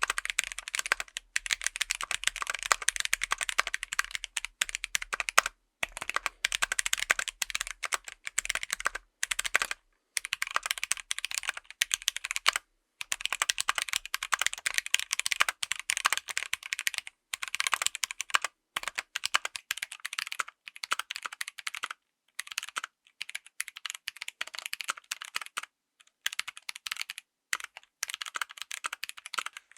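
Fast typing on a full mechanical keyboard fitted with tactile switches: a dense run of keystroke clacks, broken by short pauses every few seconds.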